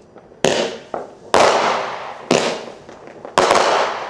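Fireworks bursting overhead: five sharp booms, each trailing off in a fading rumble, the last a quick double bang near the end.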